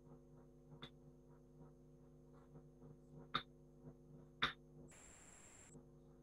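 Faint steady electrical hum over an open microphone, with a few soft clicks and a brief burst of hiss about five seconds in.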